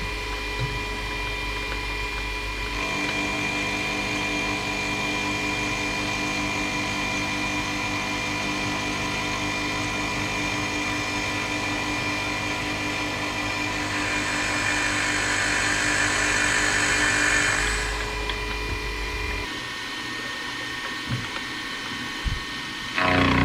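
Electric motor of a metalworking machine tool running with a steady hum. About three seconds in the set of tones changes, a hissing cutting or spraying noise rises for a few seconds past the middle, and a louder machine comes on just before the end.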